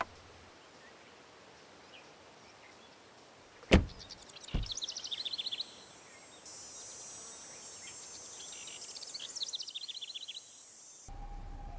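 Ambient sound effects instead of music: two heavy thuds close together, then short bird-like chirping trills over a faint hiss. Music with a guitar comes in near the end.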